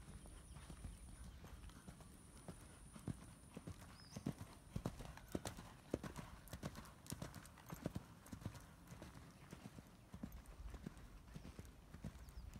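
Hoofbeats of a horse moving at a trot or canter over arena sand, a run of soft knocks that grows loudest about halfway through as the horse passes close.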